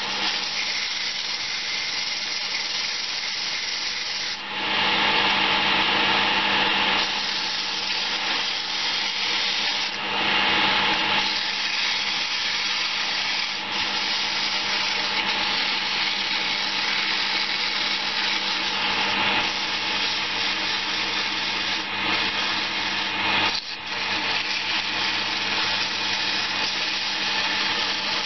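Sandpaper held by hand against a Banksia seed pod spinning on a wood lathe: a steady rasping hiss over the lathe's running hum. The rasp gets louder about four seconds in and briefly drops away about three-quarters of the way through.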